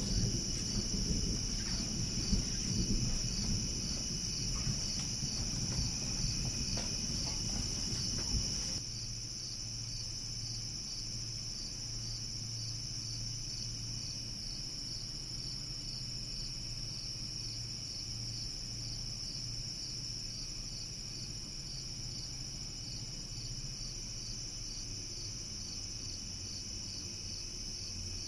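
Crickets chirping steadily in a high, pulsing trill. A low rumble sits underneath for the first several seconds and stops abruptly about nine seconds in, leaving a faint low hum.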